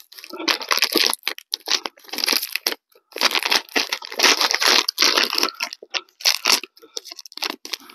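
Packing wrapping being crinkled, crumpled and torn away by hand as a rifle is unwrapped: a string of irregular rustling bursts with short pauses between them.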